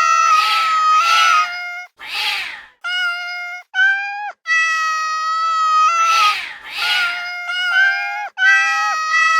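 Cat meowing loudly in long, drawn-out calls that hold one pitch and step up or down, broken by short gaps and rough, raspy bursts.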